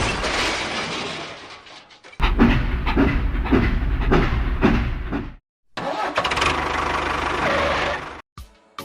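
A small engine chugging unevenly, with pulses about two or three times a second, then running steadily after a brief break.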